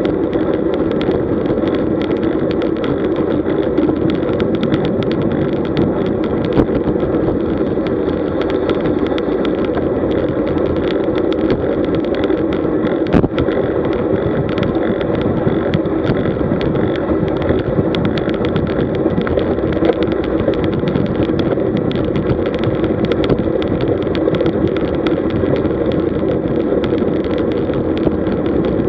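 Steady rush of wind and road noise on a road bike's mounted camera at about 40 km/h, with small clicks and rattles throughout.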